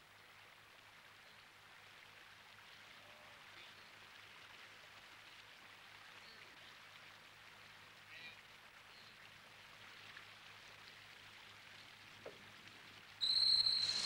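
Faint steady night-swamp ambience with a few soft chirps. Near the end it is broken by a sudden loud, shrill cry.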